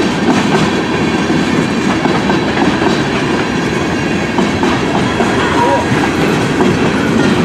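CN freight train's cars rolling past at speed, a steady, loud rumble and clatter of wheels on the rails.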